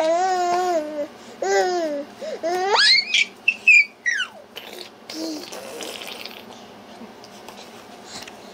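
Small child babbling in drawn-out, high-pitched vocal sounds that rise into squeals about three seconds in, then go quiet.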